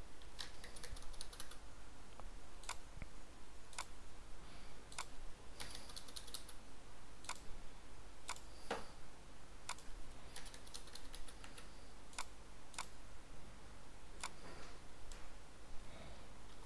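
Computer keyboard keys and mouse buttons clicking in irregular single taps and short clusters, as numbers are typed into a software field and edges are selected.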